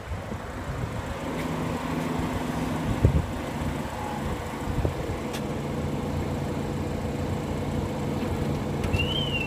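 BMW X1 sDrive28i's 2.0-litre twin-scroll turbocharged inline-four idling with a steady low hum. A single sharp knock about three seconds in, and a high warbling tone starts near the end.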